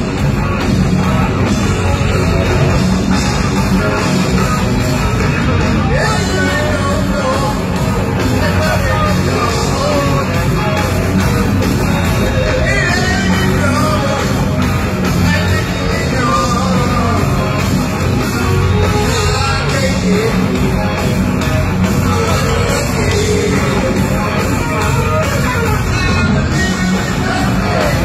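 Heavy metal band playing live at concert volume, with drums and distorted electric guitar, filling the sound without a break.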